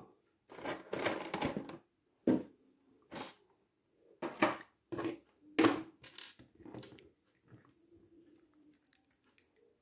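Hands handling and posing a ZD Toys Mark XXI Midas action figure: a run of short, irregular scraping and rustling noises as fingers rub and shift its limbs, thinning out after about seven seconds.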